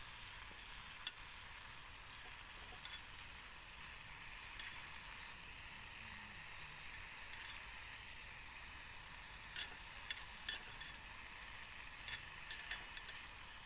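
Food sizzling in a pan as a steady hiss, with a dozen or so sharp clinks and taps of a utensil against the pan scattered through it.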